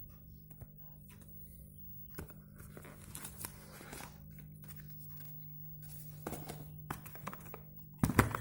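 Plastic and paper packaging being handled and torn open, in scattered crinkles and clicks with a louder burst of rustling near the end, over a steady low hum.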